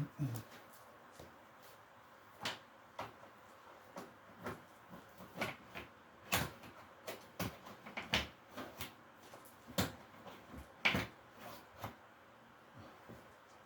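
Irregular sharp clacks and knocks, about a dozen, of a washing machine's locked door being tugged and rattled without opening.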